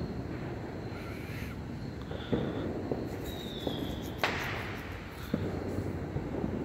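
Distant fireworks: a few scattered bangs over a steady low rumble, the sharpest about four seconds in, with a brief high whistle just before it.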